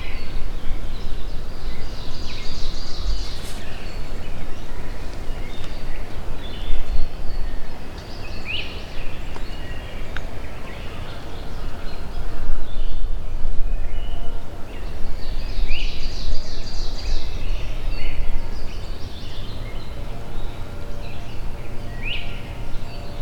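Wind rumbling and gusting on the microphone, with wild birds calling in the woods: a short rising chirp every several seconds and two bursts of fast high trilling.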